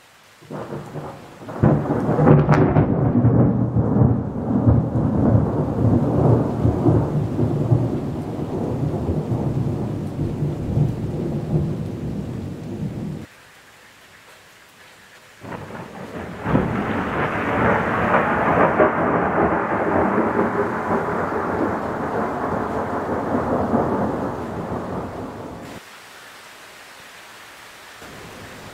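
Two long rolls of thunder during a thunderstorm, each rumbling for about ten seconds. The first opens with a sharp crack. Both cut off suddenly, and steady rain hiss is heard between and after them.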